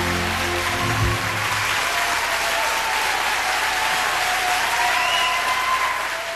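A live band's closing chord rings and stops on a final low hit about a second in. A concert audience then applauds, with some cheering over it, and the applause starts fading out near the end.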